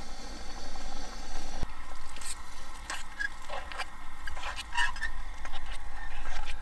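A plastic spoon stirs thick mashed potatoes in a small backpacking pot, making scattered scrapes and soft clicks. It starts after a steady hiss that cuts off abruptly about a second and a half in.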